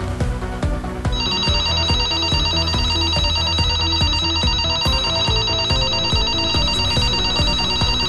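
Telephone ringing with a fast trilling electronic ring that starts about a second in and doesn't pause: an incoming call. Underneath is background music with a steady beat.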